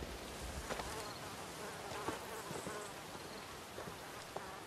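Insects buzzing in a steady outdoor ambience, with a few faint high chirps and light clicks.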